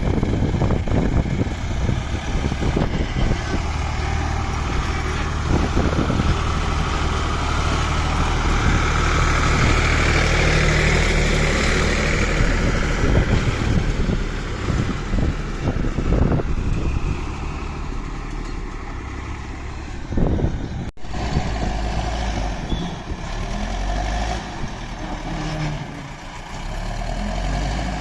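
Heavy diesel engine running steadily under a broad hiss, with an abrupt edit cut about 21 seconds in.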